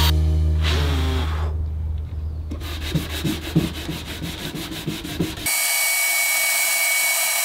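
Wood sanding on a box: a belt sander runs at first, then short, evenly spaced rubbing strokes of hand sanding. About five and a half seconds in, this gives way abruptly to the steady high whine of a DeWalt router carving wood on an X-Carve CNC machine.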